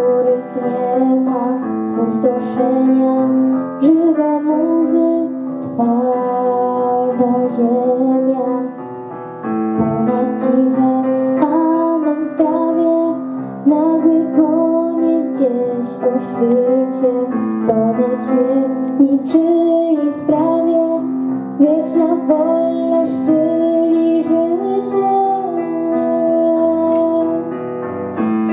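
A song with piano accompaniment, a girl singing a wavering melody over held piano chords.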